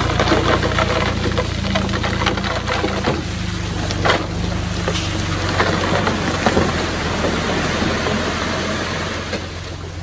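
Komatsu D20P crawler bulldozer's diesel engine running steadily under load, with crunching and clattering of stone and tracks as it pushes rock. The sound eases off a little near the end.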